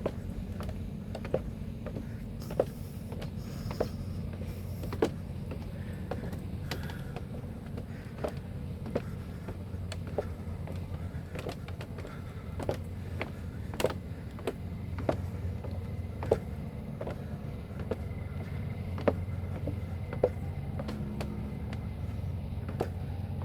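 Footsteps on a deck walkway: sharp knocks about every second over a steady low rumble.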